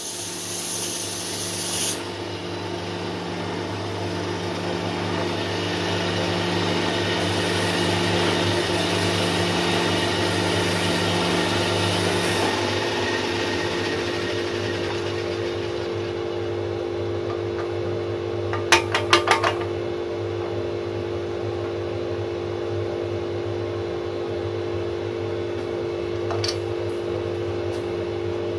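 Pegas fine-cut bandsaw running with a steady hum, its thin blade cutting through a wooden block for about the first twelve seconds, then running free. Wooden puzzle pieces give a quick rattle of clicks about two-thirds of the way through, and another click comes near the end.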